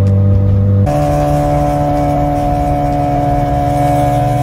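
Car engines running at a steady cruise, heard from inside a following car. About a second in, the note switches abruptly to a different engine note, slightly higher, which then holds steady.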